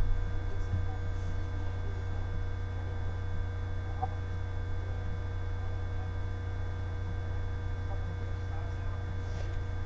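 Steady electrical mains hum with a few faint, thin steady tones above it and an occasional faint tick.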